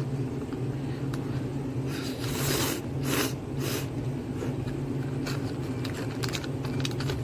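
A person slurping instant ramen noodles off wooden chopsticks: three short slurps between about two and four seconds in, then a few faint clicks, over a steady low hum.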